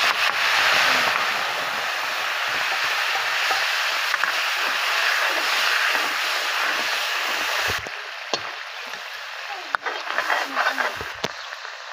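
Wet spice paste sizzling loudly as it hits hot oil in a kadhai, a steady hiss of steam. About eight seconds in it drops to a quieter bubbling fry with scattered pops and spatters.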